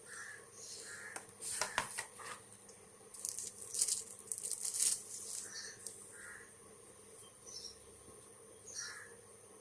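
Packaging being handled: rustling and crinkling in two bursts, about two seconds and four seconds in. Faint short chirps repeat in the background throughout.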